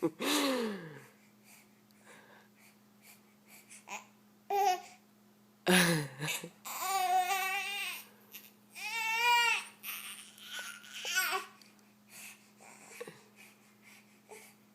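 A baby babbling and squealing: a short falling squeal at the start, then several drawn-out, wavering vocal sounds roughly six to eleven seconds in, with quiet gaps between.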